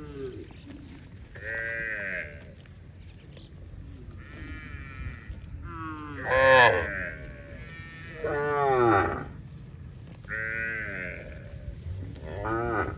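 Farm animals calling over and over with quavering, bleat-like calls, about seven in all, some overlapping; the two loudest come about halfway through.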